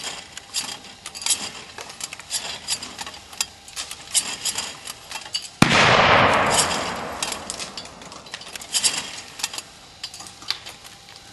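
A single loud bang a little past halfway, dying away over a second or two, amid a run of light, sharp, irregular clicks.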